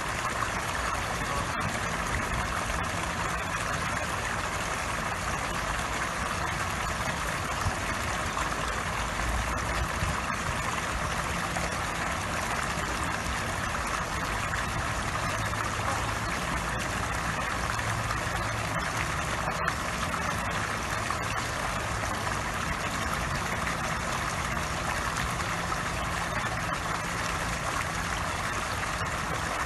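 Fountain water jet from a squirrel statue splashing steadily onto a pond's surface, with a low steady hum underneath.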